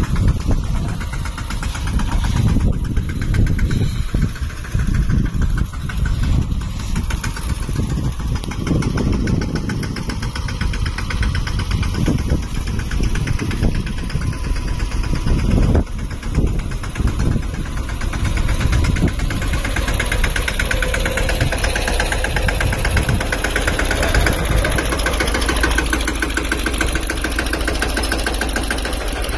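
A Mahindra Yuvraj 215 tractor's single-cylinder diesel engine running, with the sound growing brighter and busier in the last third.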